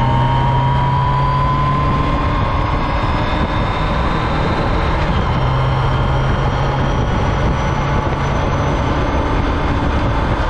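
Riding at speed on a 2005 Yamaha FJR1300: wind rushing over the microphone over the inline-four engine running steadily, with a faint whine rising slowly over the first couple of seconds.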